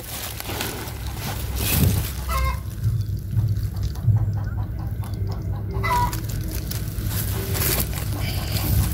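Chickens clucking now and then over a steady low rumble.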